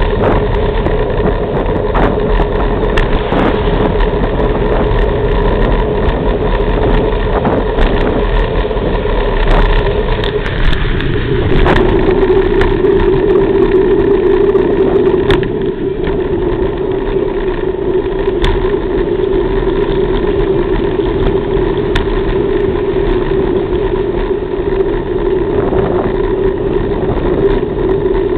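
Steady drone of a car's engine and road noise heard from inside the moving car, with scattered faint clicks; the pitch of the drone shifts slightly about eleven seconds in.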